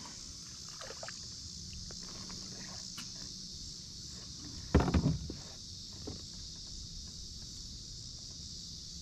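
Light handling noises aboard a plastic kayak while a small fish is unhooked over the side, with faint ticks over a steady high hiss. About five seconds in comes one brief, loud wordless vocal sound.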